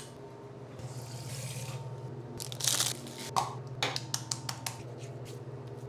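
Getting ready to shave at a bathroom sink: a short hiss about two and a half seconds in, then a run of light clicks and taps as items are handled, over a steady low hum.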